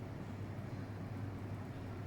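Steady low hum with a faint background hiss, unchanging throughout; no distinct events.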